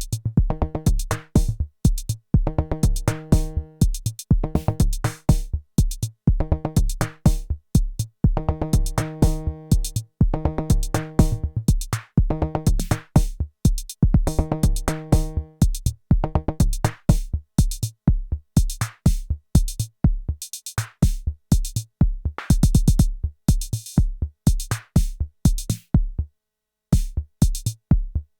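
Arturia DrumBrute Impact analog drum machine playing a sequenced beat: a steady kick drum under sharp, fast percussion hits, with a pitched note repeating about once a second through the first half. A little after 22 s there is a fast roll of hits, and near the end the beat stops for under a second, then comes back.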